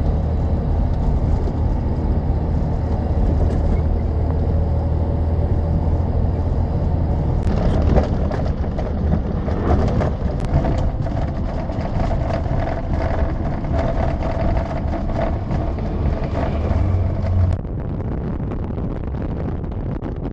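Cab noise of a MAN 4x4 diesel camper truck driving on a rough gravel road: a steady low engine rumble with road noise. Through the middle stretch many sharp clicks and knocks patter over it, and the sound drops slightly quieter near the end.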